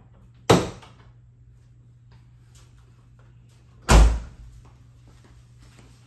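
Two heavy door slams about three and a half seconds apart, the second louder and deeper.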